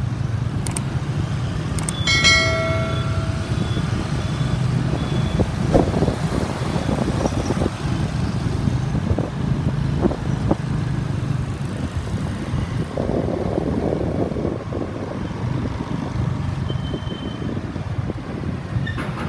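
Motorbike engine running steadily amid city street traffic. A vehicle horn sounds once for about a second, about two seconds in.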